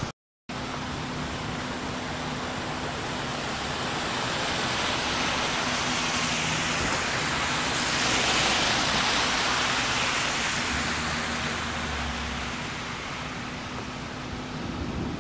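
Steady hiss of rain and water on a flooded street, with a vehicle engine idling as a low hum underneath. The hiss swells in the middle and fades again.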